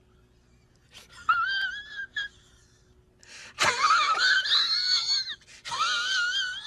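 A man laughing in a high-pitched, warbling voice, in short bursts at first and then two longer stretches from about three and a half seconds in.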